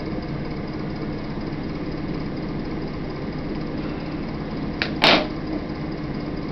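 A steady low mechanical hum, with a short click and then a single sharp knock about five seconds in.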